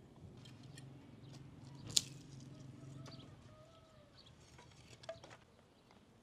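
Quiet background with a few faint ticks and one sharp tap about two seconds in.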